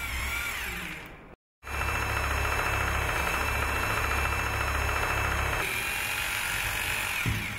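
Bosch GBH 2-18 RE rotary hammer drilling 8 mm holes into a masonry wall: a steady motor whine over a fast hammering rattle. It breaks off briefly about a second and a half in, then runs again and winds down near the end.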